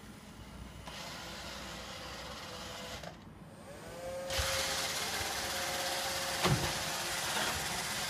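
iRobot Roomba robot vacuum running: a steady motor whir, a brief dip, then its motors spin up with a rising whine that settles into a steady whine over loud whirring as it drives across a wooden floor. One sharp knock comes near the end.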